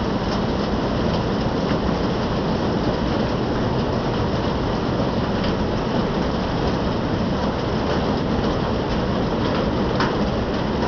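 Steady rain falling, a dense even hiss with scattered sharper drop hits.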